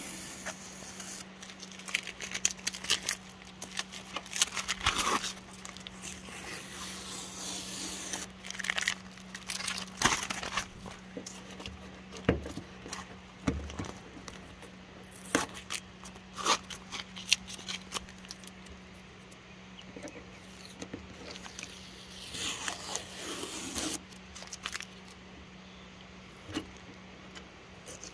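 Green painter's masking tape being peeled off a freshly painted boat hull in a series of irregular crackling tearing pulls, with the stripped tape crumpling in the hand.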